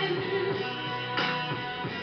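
Backing music of a slow pop ballad, in a short pause between sung lines.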